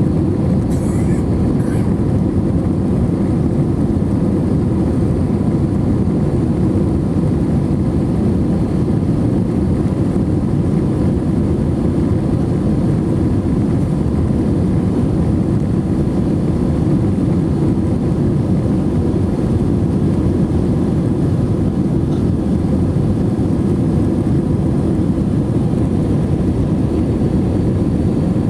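Steady cabin rumble inside an Airbus A321-231 in flight: a constant low roar of its IAE V2500 engines and the airflow over the fuselage.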